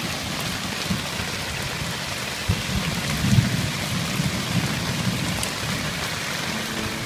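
Heavy rain pelting an MSR Hubba Hubba tent, heard from inside the tent as a steady hiss. Low rumbles swell about halfway through.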